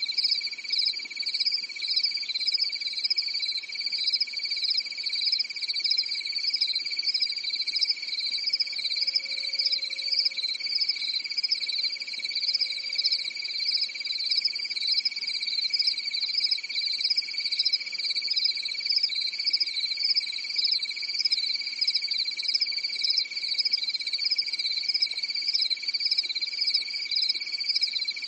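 Crickets chirping in a continuous chorus: a steady high trill beneath a faster, pulsing chirp, with no let-up.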